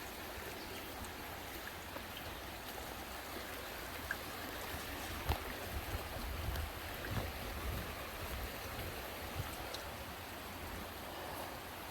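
Quinapoxet River running high after heavy rain: a steady rush of flowing water, with a few faint short ticks.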